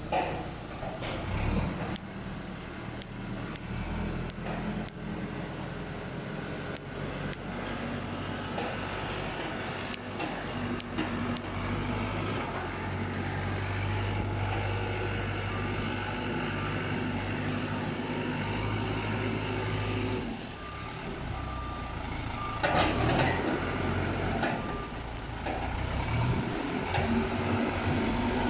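Caterpillar 432E backhoe loader's diesel engine running, its pitch rising and falling as the front bucket pushes and spreads corn stalks. Its reversing alarm beeps on and off in the second half, and there is a louder clatter about three-quarters of the way in.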